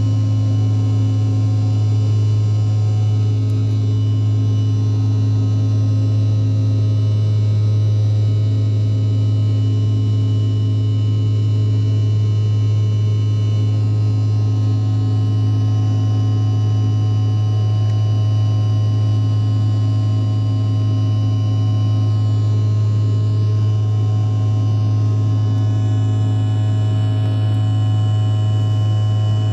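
Jet airliner cabin noise in flight: a steady engine drone with a strong low hum and several faint steady higher tones over a noisy rush.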